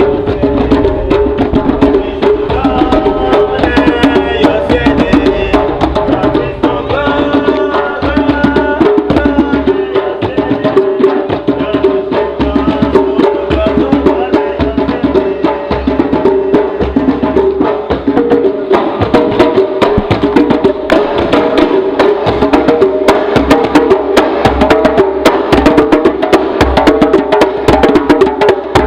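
Djembe and other hand percussion played together in a fast, dense rhythm, with sustained pitched tones and a shifting melody running through it.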